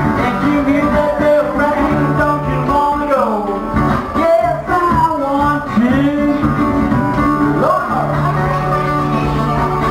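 Live acoustic blues: a National metal-bodied resonator guitar is picked and strummed, with singing over it.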